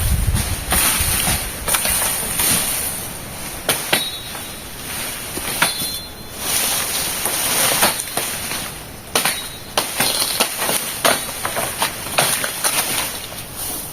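Irregular sharp chopping strokes of a hand-held blade cutting broken peach palm fronds and stems.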